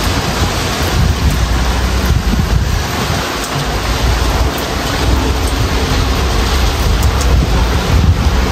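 Thunderstorm: rain falling steadily, with wind gusting and a low rumble underneath.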